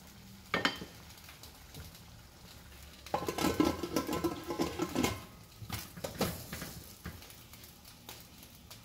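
Pressure cooker lid being set on the pot and turned into its lock: metal scraping and clanking, with a ringing clatter from about three to five seconds in and a few sharp clicks before and after.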